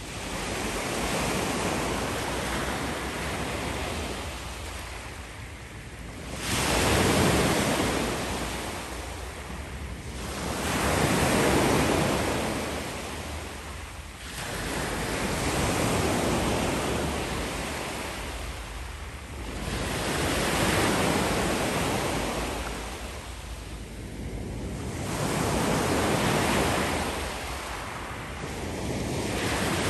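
Sea surf: waves washing in and drawing back, the rush of water rising and falling in slow swells about every four to five seconds.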